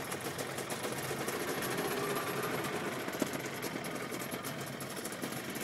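Small boat engine running steadily with a fast, even rattling chatter.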